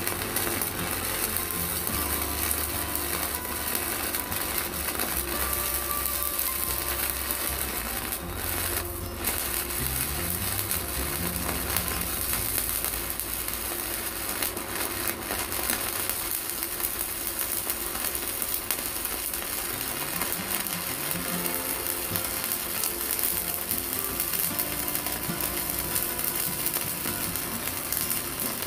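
Stick (MMA) welding arc of a mini IGBT inverter welder burning a 4 mm electrode at about 180 A, crackling and sizzling steadily without breaking off.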